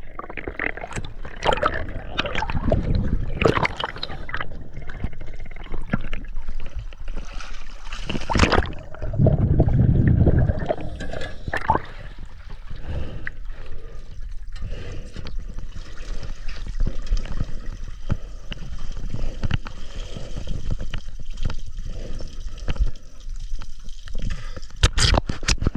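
Water gurgling and bubbling, with louder surges in the first ten seconds and a steadier trickling hiss after.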